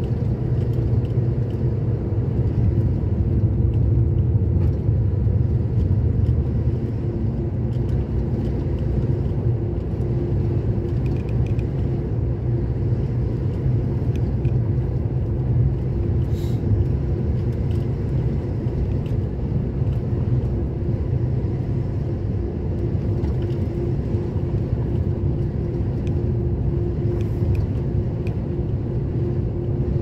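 Steady road noise of a vehicle cruising on a highway, heard from inside the cab: a low rumble of engine and tyres with a steady hum.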